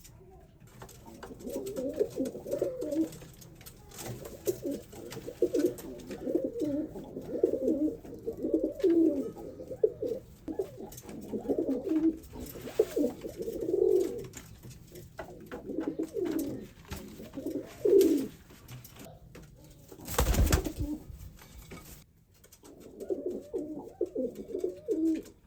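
Male domestic pigeon giving its courtship coo, low rolling phrases repeated one after another with short pauses. About twenty seconds in, the cooing stops for a moment and there is a brief rush of noise, then the cooing starts again.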